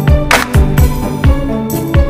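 Background music with a beat of deep, falling kick drums and sharp percussion hits over sustained chords.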